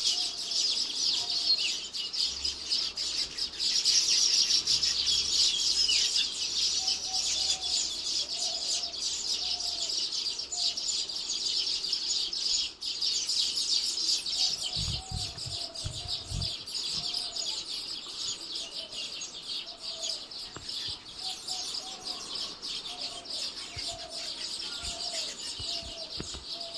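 Weaver birds chattering at their nests: a dense, continuous high twittering. From about seven seconds in, a lower call repeats at an even pace behind it, and a few dull bumps come about halfway through.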